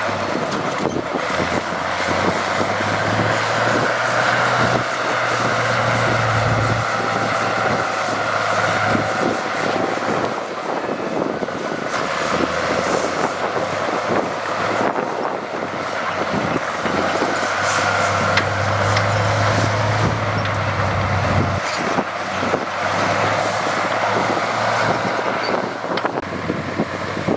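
Diesel engine of heavy earthmoving machinery running steadily. Its low note fades about seven seconds in, comes back, and drops away again about twenty-one seconds in as the load changes.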